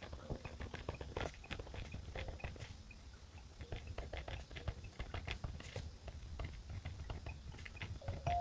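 Pen writing on paper by hand: irregular small ticks and scratches, several a second.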